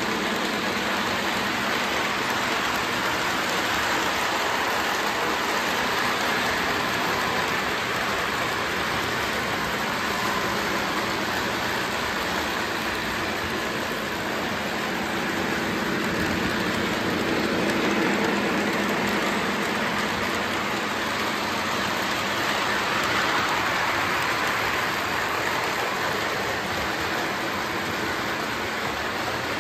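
Several model trains running on their track: a steady, noisy whir of wheels and motors with a faint hum, swelling slightly now and then.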